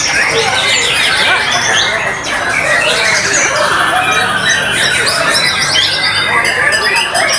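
White-rumped shamas singing in a songbird contest: a dense, unbroken tangle of fast whistles, chirps, trills and harsh calls from several birds at once.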